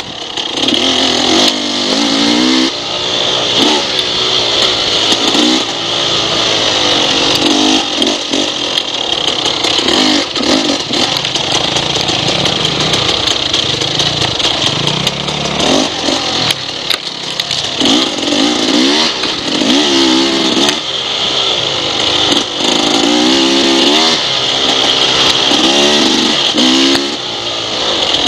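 Dirt bike engine revving as it is ridden along a trail, its pitch climbing and falling again every second or two with the throttle and gear changes, over a steady hiss.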